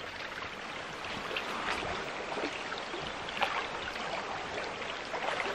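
Shallow stream running over a stony bed: a steady rush of water.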